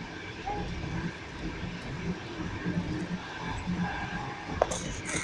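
Passenger train running along the track, heard from inside the carriage: a steady rumble with the clatter of wheels on rail joints, and one sharp click about four and a half seconds in.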